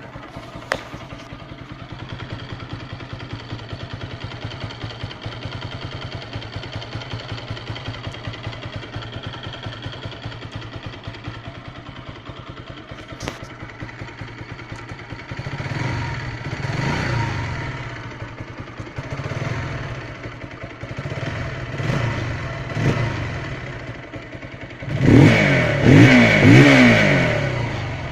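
Bajaj Pulsar NS200's single-cylinder engine idling steadily, then blipped several times from about halfway. Near the end it is revved hard twice, its pitch rising and falling.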